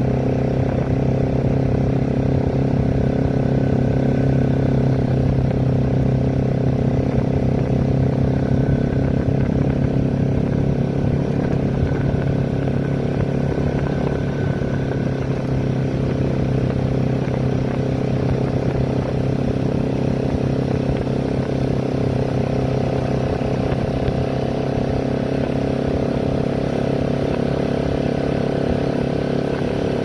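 Bajaj Pulsar NS200's single-cylinder engine running steadily at cruising speed, about 40 km/h, heard from the rider's seat.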